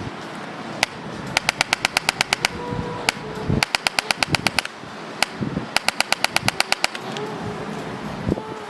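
Chiropractic adjusting gun firing in rapid bursts of clicks, about ten a second. There are three bursts, each just over a second long and each led by a single click.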